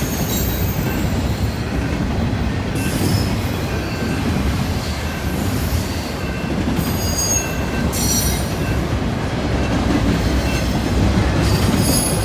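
Canadian Pacific freight train's cars rolling past with a steady rumble, with high-pitched steel wheel squeal coming and going several times.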